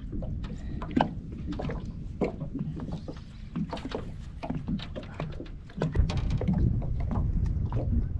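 Irregular knocks, taps and clatter on a small fishing boat, likely from handling a just-caught barramundi, over a low rumble that gets louder about six seconds in.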